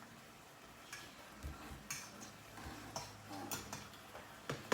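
Scattered light clicks and taps of kitchen utensils and containers being handled, over a faint steady hum.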